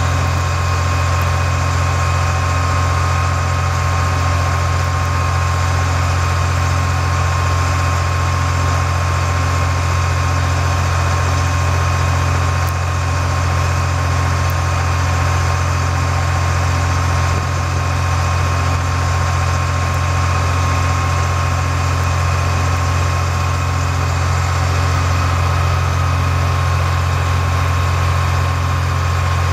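International DT466 inline-six diesel engine of a vacuum truck running steadily while parked, a deep even drone with a steady high whine over it.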